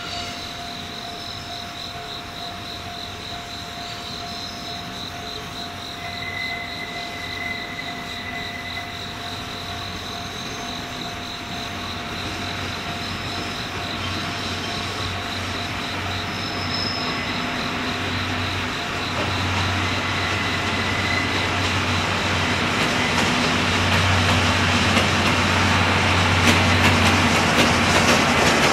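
JR ED79 electric locomotive and its train of 24-series sleeping coaches approaching and running past at low speed. The rolling noise grows steadily louder, with wheel clicks over the rail joints near the end.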